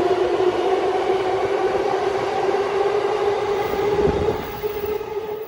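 E233-5000 series electric train accelerating away from an underground platform: the VVVF inverter traction motors give a steady whine that rises slowly in pitch, over the rumble of wheels on rail. The sound drops away about four seconds in as the cars pass.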